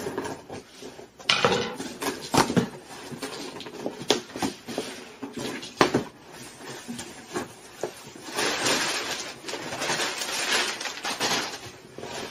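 A cardboard shipping box being opened by hand: a pen slitting the packing tape, then sharp snaps and crackles of tape and cardboard flaps being pulled back. From about eight seconds in comes a longer stretch of rustling as the packing paper inside is handled.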